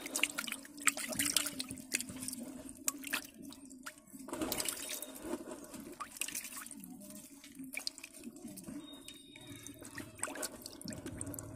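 Live sheat fish (catfish) thrashing in shallow water in a net, with many irregular wet splashes and drips.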